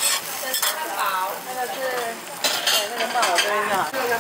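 A metal spatula scraping and clinking on a hot flat-top griddle, with a few sharp strokes, while food sizzles on the plate underneath.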